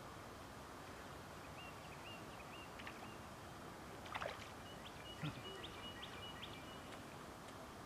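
Quiet riverside ambience: a steady faint wash of background noise, with a small bird giving short, high chirps again and again through the middle and a quick falling call about four seconds in.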